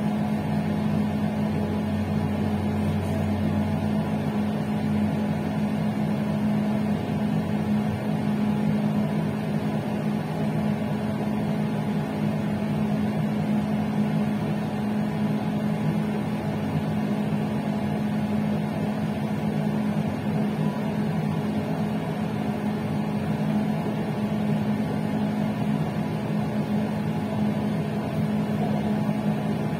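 Passenger train running along the line, heard from its rear end: a steady low hum with a fixed tone over a continuous rumble. A deeper hum underneath drops away about four seconds in.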